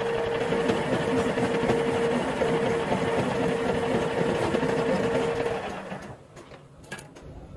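A metal lathe running under power with a steady whine while a single-point tool cuts 1.5 mm pitch threads on a welded truck hub spindle. About six seconds in the sound dies away, and a few clicks follow.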